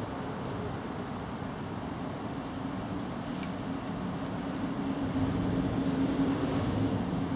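A low vehicle engine hum, as from passing road traffic, growing louder in the second half over a steady hiss of rain.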